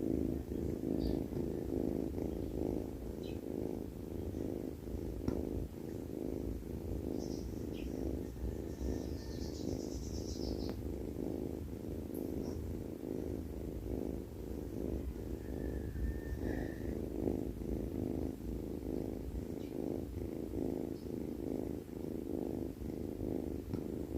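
Sleeping cat making a continuous low, evenly pulsing rumble with each breath, the sound the title calls snoring.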